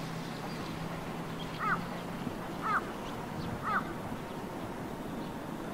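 A crow cawing three times, about a second apart, over a low steady hum that stops about two seconds in.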